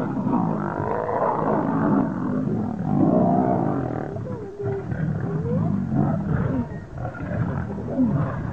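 Several lions growling and snarling as they fight, a near-continuous harsh, overlapping din that eases briefly about halfway through and again near the end.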